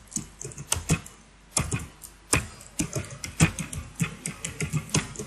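Typing on a computer keyboard: a quick, irregular run of key clicks, several a second, with a short pause about a second in.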